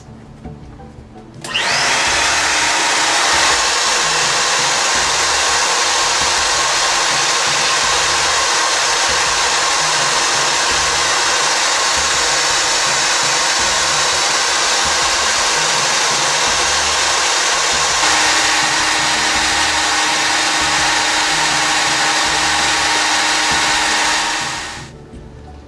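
Benchtop sandblast cabinet running: compressed air driving fine 220-grit aluminum oxide through a handheld nozzle onto a brass model, stripping its paint. It makes a loud, steady hiss that starts about a second and a half in and stops near the end.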